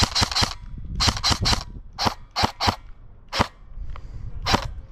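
Airsoft gun firing: two quick bursts of three or four sharp snapping shots, then about five single shots spaced out over the next few seconds.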